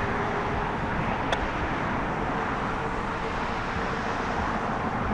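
Steady outdoor background rumble, like road traffic, with a faint tick just over a second in.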